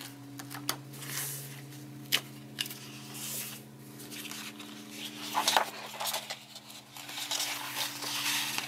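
Paper pages of a coloring book being handled, slid and turned, giving irregular rustles and soft taps, over a steady low hum.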